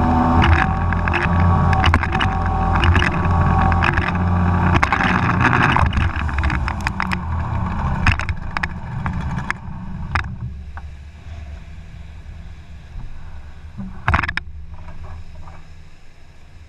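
Boat's outboard motor running hard, with water slapping and spraying against the hull, as the boat is driven up a shallow river mouth and beached on the sand at low tide. The engine and splashing fade over a few seconds about halfway through as the boat slides to a stop. A low steady engine hum is left, with one sharp knock near the end.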